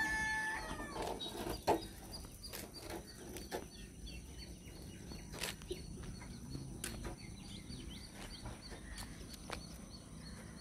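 Quiet farm-field ambience: a bird repeating short high chirps a few times a second, with a brief pitched call at the very start. Scattered sharp clicks and rustles of footsteps through dry field vegetation, the loudest about two seconds in.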